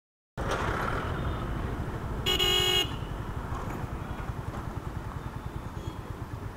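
Motorcycle engine running at low road speed in city traffic, starting after a brief silence. A vehicle horn honks once for about half a second, about two seconds in, and is the loudest sound.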